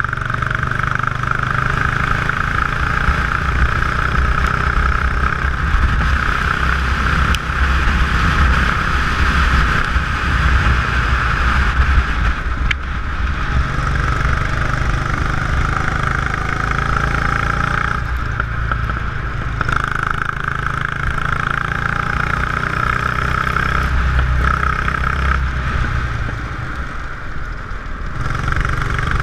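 Go-kart engine running hard at racing speed, heard from on board with wind noise over the camera. The engine note eases briefly about halfway through and again near the end, then picks back up.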